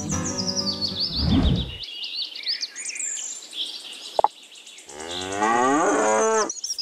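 A cow mooing: one long, drawn-out moo about five seconds in, over chirping birdsong.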